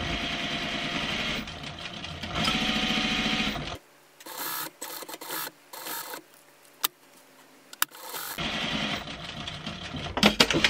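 Sewing machine stitching a zipper onto fabric panels, running for about four seconds, then stopping for several seconds with only a few faint clicks, then running again for about two seconds. A few sharp clicks come near the end.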